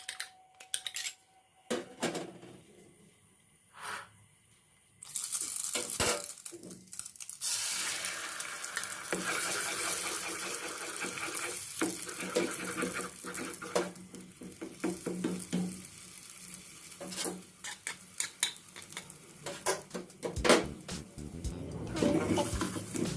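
Kitchen cooking sounds: sharp clinks and taps of utensils against dishes, then from about five seconds in a steady hiss with clicks running on over it.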